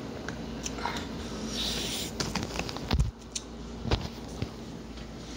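Handling noise: light scraping and clicks of a plastic bottle being fiddled with, a short hiss, and two dull knocks as the phone is picked up and moved.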